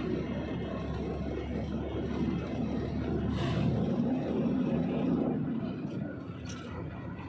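Truck engine running with a low, steady rumble. A brief hiss comes about three and a half seconds in.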